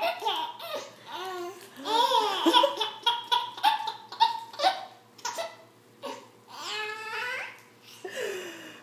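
Baby laughing in repeated bursts of giggles and belly laughs, with a short lull about midway.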